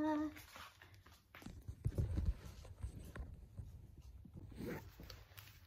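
A few soft footsteps and low thumps of a phone being handled, the loudest cluster about two seconds in.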